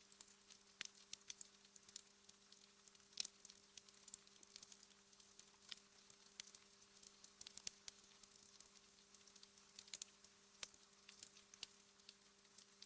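Wood fire in a fireplace crackling quietly, with many irregular small pops and snaps and one louder pop about three seconds in. A faint steady low hum runs underneath.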